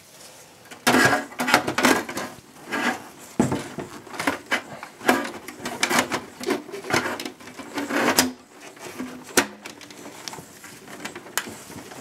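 Hard drive caddy being fitted back into a desktop PC's sheet-steel drive bay: an irregular run of rattles, scrapes and clicks of metal and plastic being handled, with a couple of sharp clicks near the end.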